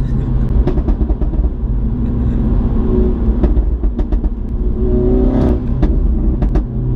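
Mini F56 John Cooper Works' turbocharged 2.0-litre four-cylinder engine pulling on the move, heard from inside the cabin with road noise, its note strengthening about five seconds in.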